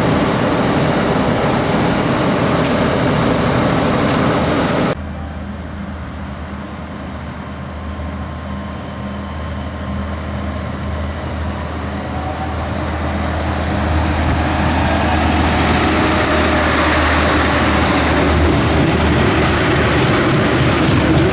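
Adelaide Metro diesel railcar running at the platform with a steady engine hum. After a cut about five seconds in, a diesel railcar approaches and passes close by, its low engine hum and running noise growing steadily louder toward the end.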